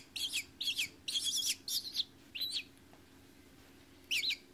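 Nestling hawks giving a rapid series of short, shrill chirps with a wavering pitch, about two a second. The calls break off for over a second and start again near the end. These are the food-begging calls of young raptors.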